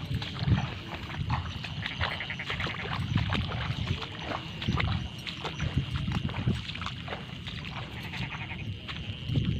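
Footsteps squelching and splashing through a wet rice paddy, about one heavy step a second, over a steady high trilling of night insects.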